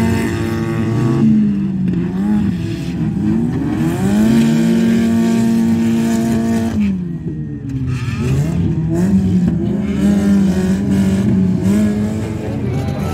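Several demolition derby cars' engines revving hard as they push and ram one another, their pitch rising and falling and at times held high for a few seconds.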